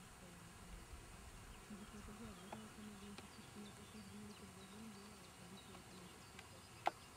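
A flying insect buzzing faintly, a hum that wavers in pitch and comes and goes for a few seconds. A single sharp click near the end.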